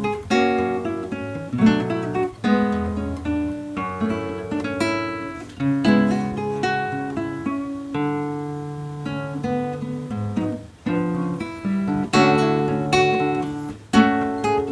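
Solo nylon-string classical guitar (violão) played fingerstyle: an arrangement of a Brazilian popular song, with a melody over plucked chords and bass notes.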